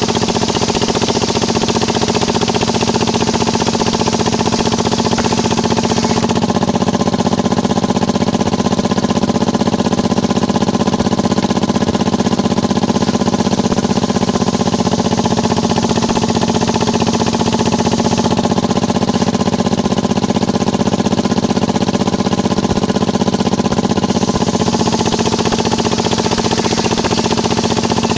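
Engine-driven circular saw of a small sawmill running steadily while ripping waru wood into battens. A high cutting hiss over the engine drone drops away for a stretch after about six seconds and returns strongly near the end.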